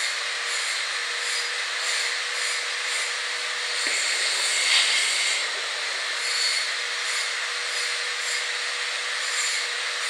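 Eight-nozzle pneumatic liquid filling machine running as it fills a row of bottles: a steady rushing noise of liquid streaming through the nozzles into the bottles, over a faint steady hum.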